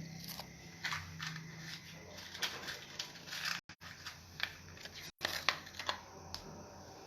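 Eating sounds: irregular short wet clicks and mouth smacks, several a second at times, with two brief moments where the sound drops out entirely.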